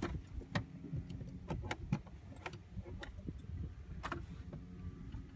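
Boat motor running with a steady low hum, under a scatter of sharp clicks and knocks.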